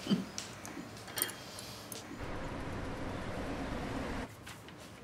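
A few light clicks, then a steady hum of street traffic for about two seconds that cuts off suddenly.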